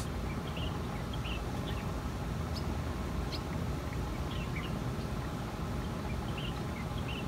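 Outdoor ambience: a steady low rumble with scattered short, high chirps of small birds.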